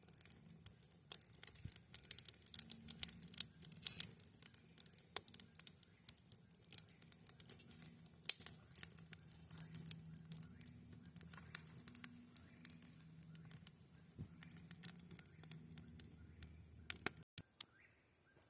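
Wood campfire crackling with many irregular sharp snaps and pops, cutting off abruptly near the end.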